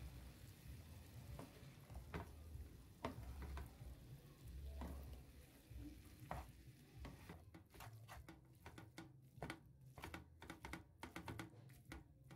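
Wooden spatula stirring and tossing spaghetti with sausage and peppers in a frying pan: soft scraping with sharp clicks and taps against the pan, coming thick and fast in the second half. A faint sizzle comes from the pan.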